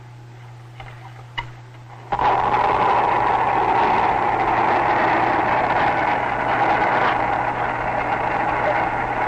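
After a couple of faint clicks, a loud rushing roar cuts in suddenly about two seconds in and holds steady.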